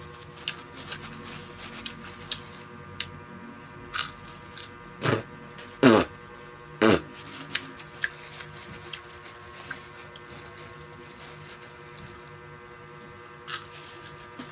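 Clear plastic food bag crinkling and small clicks of eating from it over a steady electrical hum, with three loud, short sounds that fall quickly in pitch about five, six and seven seconds in.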